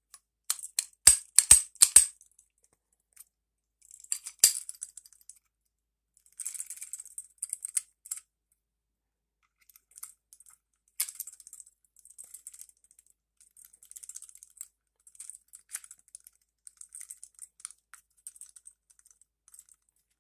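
Steel parts of a 1911 pistol clicking and scraping during reassembly, as the slide is worked onto the frame. A quick run of sharp metallic clicks comes about half a second to two seconds in, another near the middle, then lighter clicks and rattles.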